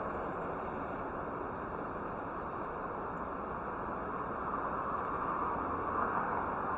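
Steady city street ambience: a continuous wash of traffic noise, growing a little louder toward the end.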